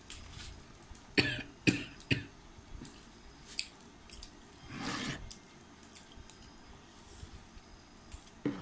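A person coughing: three short coughs in quick succession a little over a second in, then a longer cough about five seconds in.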